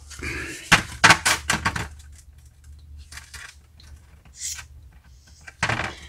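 Small metal carburetor parts and tools being handled on a workbench: a quick run of clicks and knocks about a second in, a few lighter ones later, and a short hiss.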